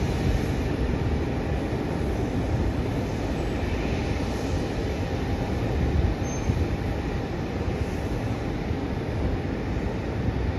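Steady low rumble of airport apron noise, with no distinct firework bangs standing out.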